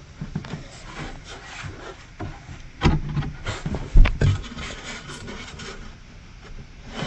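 A passive radiator being pushed and worked into its pre-cut hole in a wooden subwoofer enclosure: its frame scrapes and knocks against the wood, with two dull thumps about three and four seconds in, as it fails to seat in the hole.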